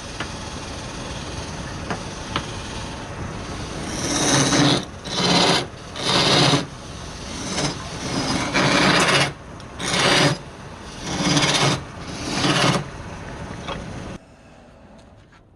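Wood being rasped by hand in repeated strokes, about one a second, over a steady machine hum. The hum cuts out near the end.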